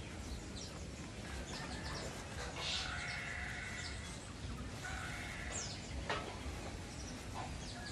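Two calls from a farm animal: one lasting under a second about two and a half seconds in, and a shorter one about five seconds in.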